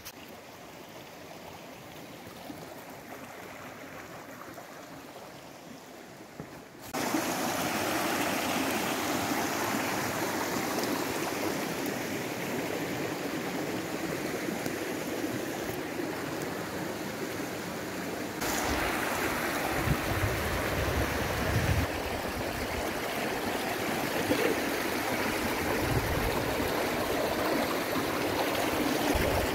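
A rocky mountain stream rushing steadily and loudly, cutting in suddenly about seven seconds in after quieter sound of walking on a forest path. Low rumbles come and go in the second half.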